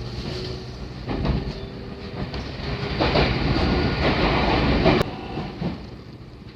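JR 313-series electric train running along the track, a steady rumble with wheels clacking over rail joints. It grows louder and fuller for about two seconds past the middle, then drops back suddenly.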